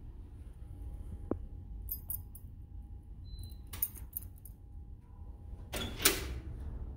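Metal-on-metal clicks and a clank from a glass entrance door's handle and latch being worked as the door is opened. The loudest is a short, harsh clack about six seconds in, over a low steady rumble.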